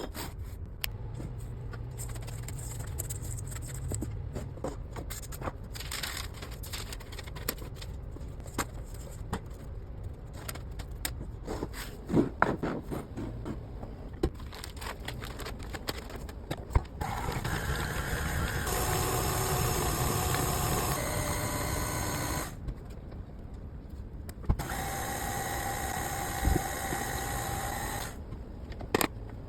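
Kitchen utensils and bowls tapping and clicking, then an electric kitchen appliance motor running steadily twice: once for about five seconds, and after a short pause for about three and a half seconds.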